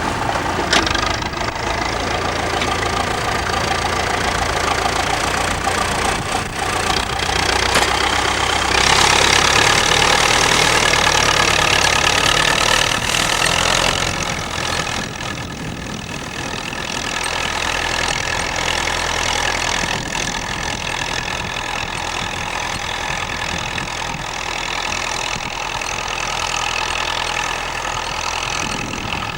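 Massey-Ferguson 65 tractor engine running steadily, louder and brighter for several seconds around the middle, then easing abruptly to a lower, even note for the rest.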